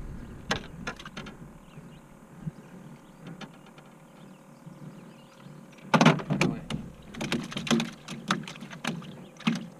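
A few light clicks, then from about six seconds in a run of loud knocks and thumps on an aluminum jon boat's hull and deck as a bass is landed over the side.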